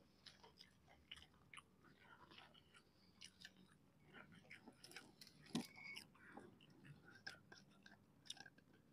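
Faint chewing and biting of crispy fried snacks (gorengan), a scatter of small wet clicks and crunches, with one sharper click a little past the middle.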